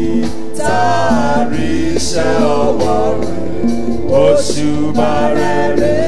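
Live gospel worship music: singing over a church band of keyboard, drums and percussion, with long, sliding held notes over sustained keyboard chords.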